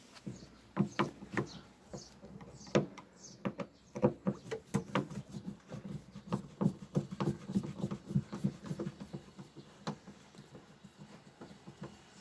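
Irregular light clicks and taps, a few a second, from a Torx screwdriver and the plastic brake-light housing being handled while its screws are undone.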